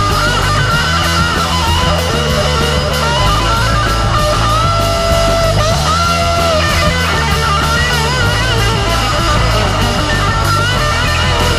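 Rock band playing an instrumental passage: Les Paul electric guitar with a melodic line, long held notes bending in pitch about halfway through, over Fender Jazz bass and drums with cymbals.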